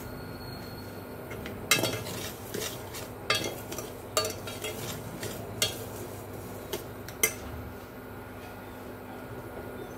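A metal spoon stirring and scraping dry sugar and tea leaves in a heavy pot, with a string of sharp clinks between about two and seven seconds in, over a steady low hum.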